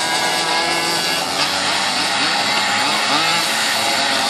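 Several tuned two-stroke Mobylette mopeds with Polini 74 cc kits racing together on a dirt track, their engines running at high revs. In the second half, one engine revs up and down.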